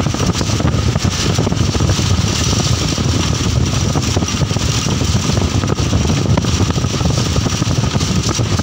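Steady rumble and road noise of a moving vehicle, with wind rushing and buffeting at the open window.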